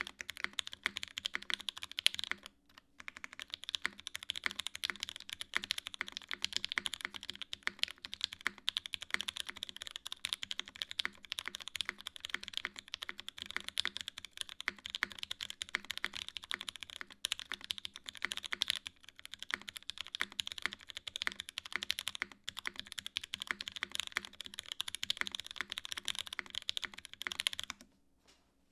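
Continuous fast typing on a custom mechanical keyboard with Pewter switches on an aluminium plate and GMK keycaps: a dense run of keystroke clacks, with a brief pause a couple of seconds in, stopping shortly before the end.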